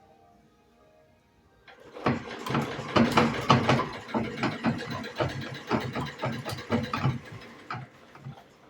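1928 Singer sewing machine running: a rhythmic mechanical clatter that starts about two seconds in and stops near the end.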